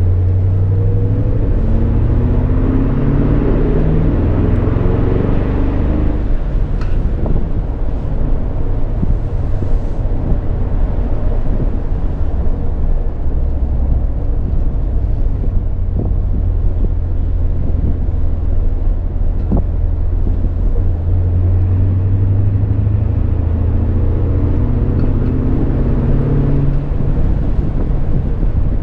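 Ford Mustang's engine heard from inside the car, pulling up through the revs over the first few seconds, running steadily in between, and climbing in revs again near the end, over a low road rumble.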